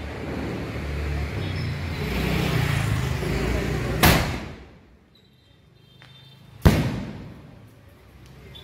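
A 3-inch aerial firework shell firing from its tube with a sharp bang about four seconds in, then bursting overhead with a second, louder bang some two and a half seconds later.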